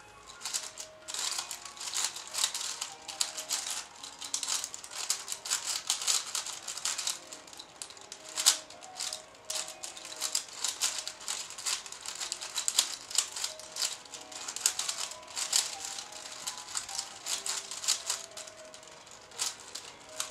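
Plastic 5x5 puzzle cube being turned fast in the hands during a solve: a continuous clatter of layer turns clicking into place, with one sharper clack about eight seconds in.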